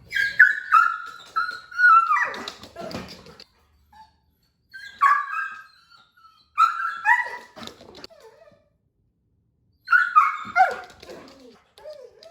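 Goldendoodle whining and crying in four bouts of high-pitched cries, many sliding down in pitch.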